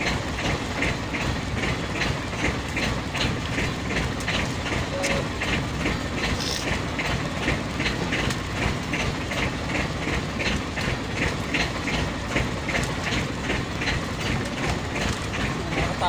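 Boat engine running steadily: an even mechanical clatter of about three ticks a second over a constant low rumble.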